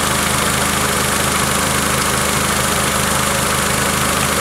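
Honda Accord engine idling steadily, with a fresh alternator charging the battery and its drive belt newly adjusted so that it no longer squeals.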